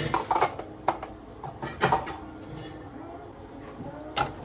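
Several sharp clinks and knocks of small hard objects being handled and set down, the loudest about two seconds in, with a faint steady tone underneath.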